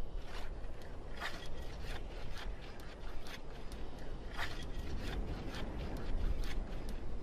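Irregular rasping scrapes, roughly two a second, against snow or ice, over a steady low rumble.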